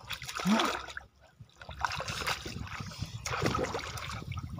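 Shallow muddy water sloshing and trickling around hands groping in the mud, in irregular splashes that pick up from about two seconds in.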